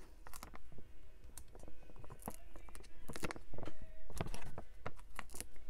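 Hands handling embossed cardstock and pressing foam adhesive dots onto it: scattered light clicks and taps at an irregular pace.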